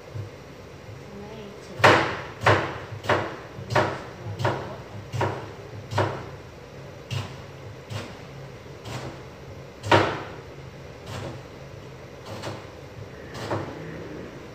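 Kitchen knife chopping tomato on a cutting board: a run of sharp knocks against the board, about one and a half a second, then slower, more spaced cuts.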